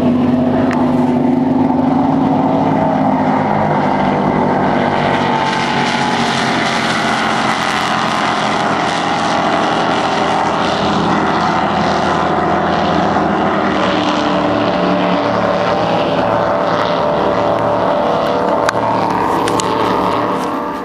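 Supercharged, carbureted racing engines of an MTI 39 catamaran powerboat running at high speed, a loud steady drone over the rush of water. The engine note drops a little about three and a half seconds in.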